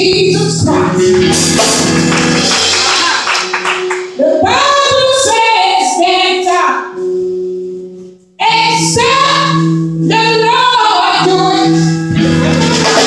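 A woman singing gospel into a microphone in phrases over held backing chords. She breaks off about halfway through and comes back in after a second or so.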